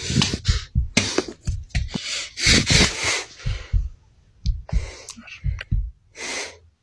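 Handling noise from a handheld phone being swung around: an irregular run of low thumps with loud rustling, breath-like bursts over them.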